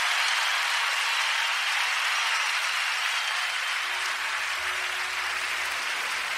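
Concert audience applauding at the end of a live song, the applause slowly dying down.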